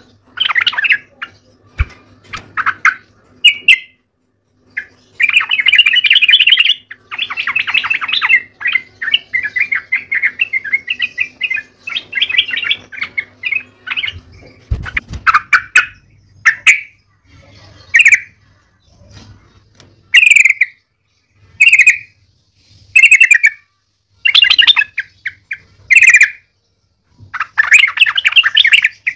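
Yellow-vented bulbul singing bubbly, chattering phrases. Long runs come in the first half, then short separate phrases a second or two apart, then another long run near the end.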